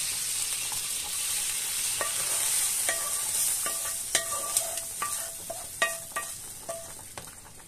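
Hot oil and fried vermicelli sizzling with a steady hiss as they are scraped from a frying pan into a pot of hot vegetable soup, the hiss fading over the last few seconds. From about two seconds in come a dozen or so knocks, several with a short metallic ring, as the wooden spoon and pan strike the rim of the metal pot.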